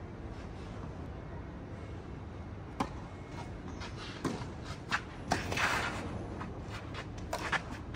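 Several sharp knocks scattered through the second half, with a short scraping rustle in the middle, over a steady low rumble.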